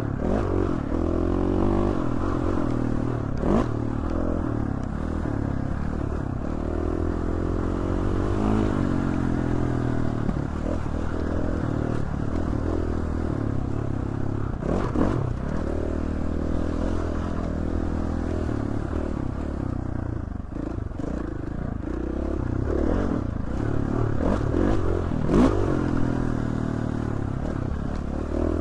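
Dirt bike engine running on a trail ride, its pitch rising and falling as the throttle opens and closes, with occasional knocks and rattles from the bike over rough ground.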